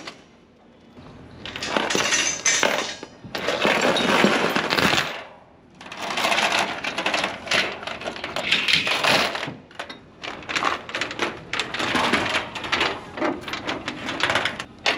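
Metal tie-down chains clanking and rattling as they are thrown over and pulled across a loaded trailer to bind the load down. The rattling comes in several long bursts with brief lulls, about a second in and again about five and a half seconds in.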